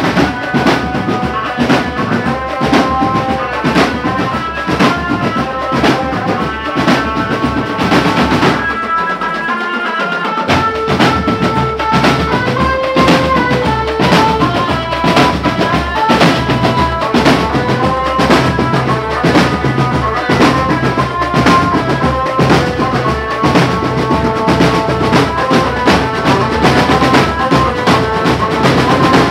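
Marching drum band playing live: rapid snare and tenor drum strokes and rolls with bass drums under a melody line. The bass drums drop out for about two seconds around nine seconds in, then come back.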